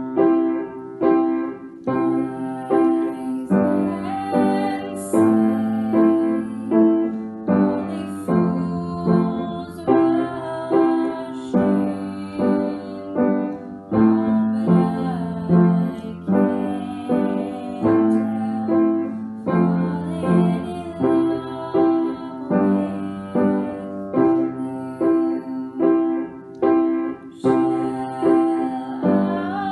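Upright piano playing a slow ballad accompaniment, with notes struck in a steady rocking pattern about twice a second.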